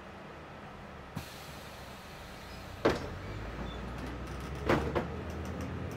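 City bus heard from inside: engine and road drone with a brief hiss, then a loud knock about three seconds in, after which the engine runs louder; two more knocks follow near the end.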